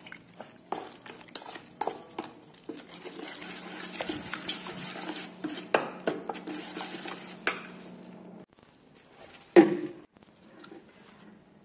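Metal spoon stirring thin sorghum-flour batter in a steel bowl, with repeated clinks and scraping against the bowl's sides. Near the end, one louder clack as a plate is set down over the bowl.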